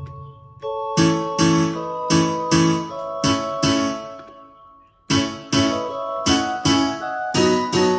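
Yamaha PSR-S970 arranger keyboard sounding one of its voice presets. A quick run of struck chords, each fading after its attack, pauses for about a second midway and then a second run follows.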